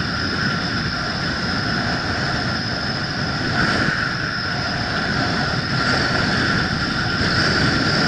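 Skis sliding and carving on groomed, packed snow, with wind rushing over a helmet-mounted camera: a steady, noisy rumble with a hiss.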